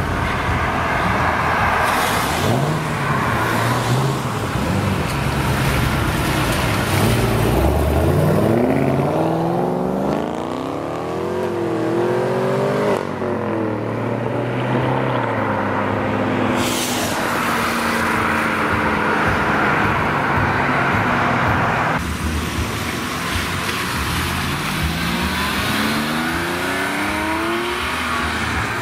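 Sports cars accelerating hard away one after another: a Chevrolet Camaro, a C7 Corvette Z06 and a Porsche 911 Targa, each engine note rising as it pulls through the gears, with a gear change partway through one of the pulls.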